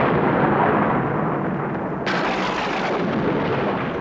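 Thunder rumbling over a dark castle title card: a loud, dense rumble, with a second crash starting sharply about two seconds in.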